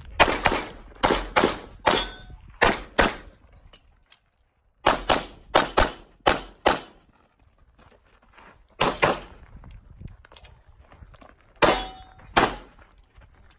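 Walther PPQ M2 Q5 Match pistol fired in quick strings of two to six shots, with short pauses between groups, about eighteen shots in all. Steel targets clang with a brief ring on some of the hits.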